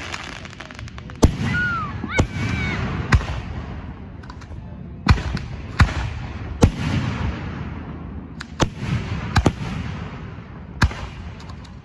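Aerial fireworks shells bursting overhead: about ten sharp bangs at irregular intervals of roughly a second, each echoing away between shots.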